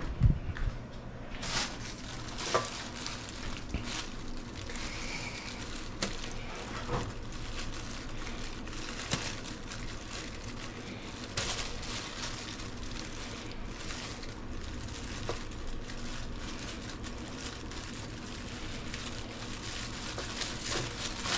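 Steady sizzling hiss from a pan heating on the stove, with scattered knocks and clicks and plastic bag rustling; the loudest knock comes just after the start.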